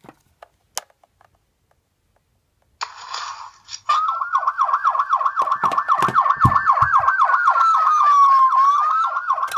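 A few light clicks, then a mobile phone ringing with a loud, fast-warbling electronic ringtone that pulses about four to five times a second. The phone rings as a call placed from the rotary telephone comes through.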